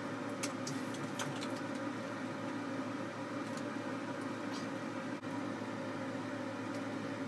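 A steady low machine hum with a few fixed tones, broken by a few faint light clicks in the first second or so.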